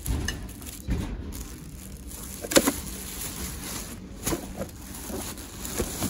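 Handling noise as thrifted items are moved and set down: a few knocks and light rustling, the loudest knock about two and a half seconds in.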